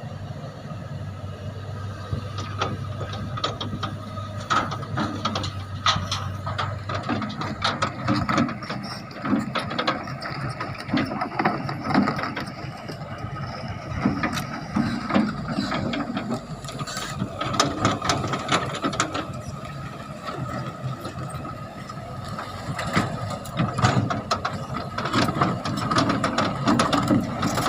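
Excavator at work: a steady high whine runs under many irregular metallic clanks and knocks, with a low hum over the first several seconds.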